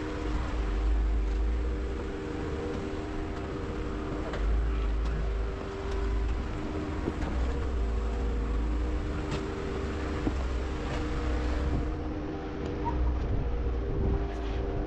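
Jeep engine running at low speed while crawling a rocky trail: a steady drone over a deep rumble that swells and eases, with a few sharp knocks along the way.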